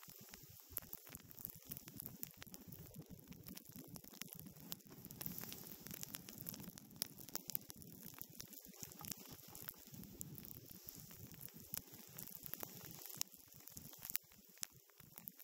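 Snowboard sliding and carving over snow: a continuous hiss and scrape peppered with many small crackles and ticks.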